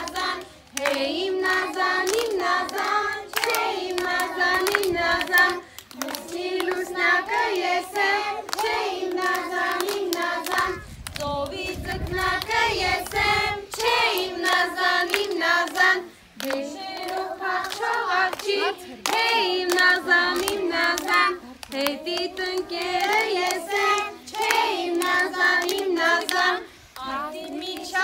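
A group of young children singing a song together in phrases of a few seconds with short breaks, clapping their hands in time.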